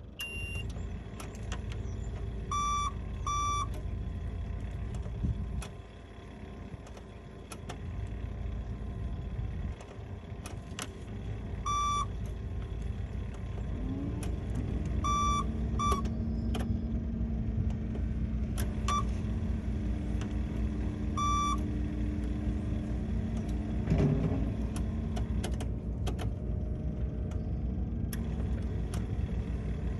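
Engine of a CC900 ride-on double-drum roller running steadily as it rolls sand, with a steady hum joining about halfway, when the sound gets louder. Short electronic beeps, mostly in pairs, sound several times from the machine's alarm.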